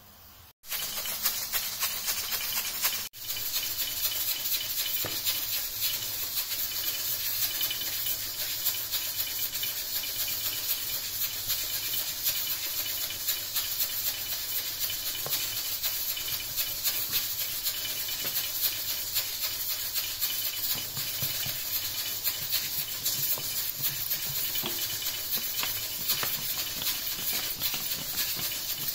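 Wooden rolling pin rolled back and forth over a dough round on a flour-dusted countertop: a steady, rough scraping hiss with many small clicks.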